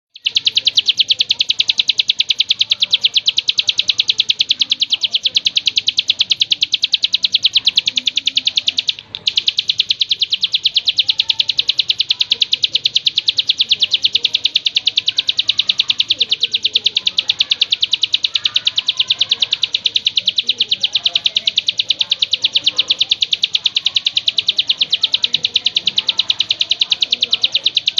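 A songbird's rapid chirping trill, many even, high notes a second, repeated without pause except for a brief break about nine seconds in, as in a looped bird-song track for training songbirds.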